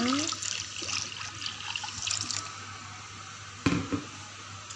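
Coconut water pouring and splashing into a pan of spice paste for about two seconds, then a single sharp knock a little after three and a half seconds in.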